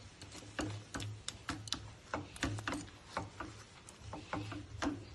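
Steel spoon clicking and scraping against a nonstick pan while stirring melted jaggery, in irregular sharp ticks a few times a second.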